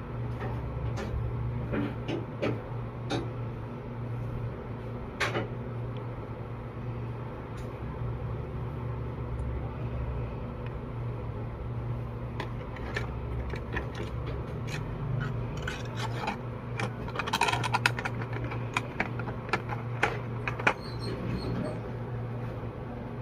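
Scattered light clicks and clatters of small objects being handled on a workbench, busiest about two-thirds of the way through, over a steady low electrical hum.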